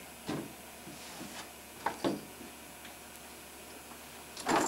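Toys being rummaged through in a plastic toy box: a few scattered light knocks and clicks, about a second apart, with a louder brief clatter near the end.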